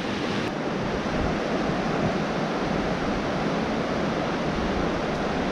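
Steady rushing of a small mountain trout stream, an even wash of water noise.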